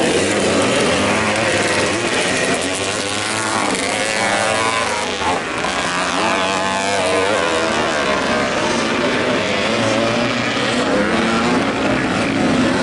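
Vintage motocross motorcycle engines revving hard, their pitch rising and falling through the gears, with more than one engine heard at once.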